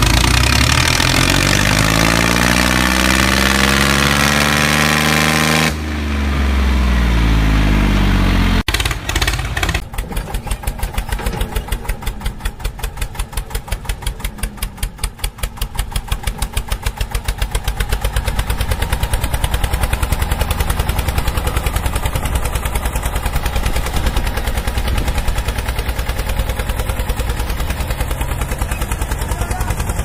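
Tractor engine sound whose pitch falls and rises during the first few seconds, then, after a sharp break about nine seconds in, settles into a fast, steady chugging.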